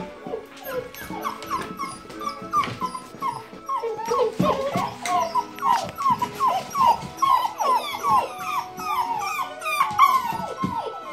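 A litter of puppies whining and yipping: many short cries that fall in pitch, overlapping at several a second, growing busier about four seconds in.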